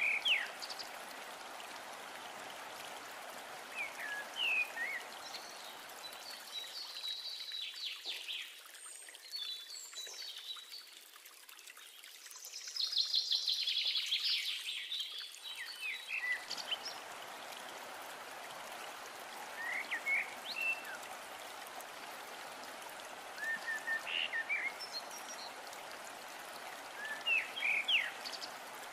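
Masala and water simmering and bubbling in a nonstick pan, with short scrapes of a wooden spatula stirring every few seconds. A louder, crackling bubbling stretch comes in the middle as a block of instant noodles goes into the boiling liquid.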